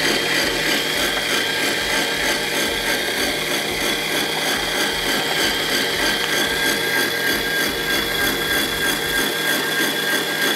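Kraft KF-MG2703MGL electric meat grinder running steadily with a whine while minced meat is pushed through its sausage nozzle, stuffing a sausage casing.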